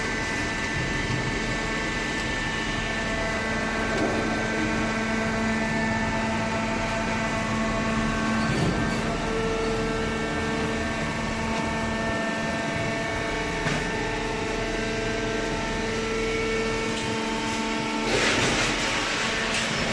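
Hydraulic paper baler running: a steady machine hum with a constant whine from its pump motor. A hissing rush comes in near the end.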